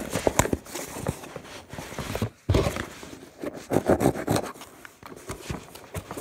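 Cardboard shipping box being pried open by hand: tape ripping and the flaps scraping and rubbing in irregular bursts, loudest about halfway through.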